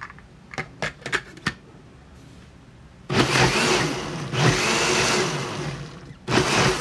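Electric blender blending a thick sauce to mix in salt just added: a few sharp plastic clicks as the jar is handled, then the motor runs loudly for about three seconds, stops briefly and runs again for a short pulse.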